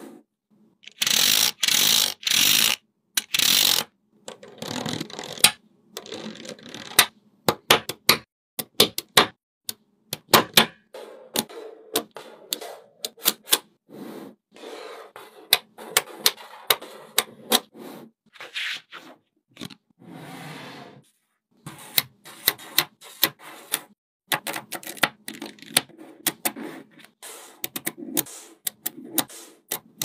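Small magnetic metal balls clicking and clacking against each other as strips of them are snapped together, pressed and pulled apart by hand. The clicks come fast and irregularly, with short rattling scrapes in between, the loudest a few seconds in.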